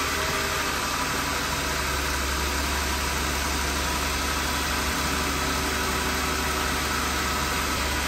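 The 3.6-litre Pentastar V6 of a Jeep Grand Cherokee idling steadily with an even hum.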